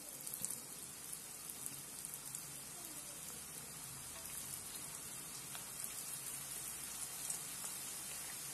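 Hot oil sizzling and crackling as handfuls of batter-coated raw peanuts are dropped in to deep-fry, getting slightly louder as more peanuts go in.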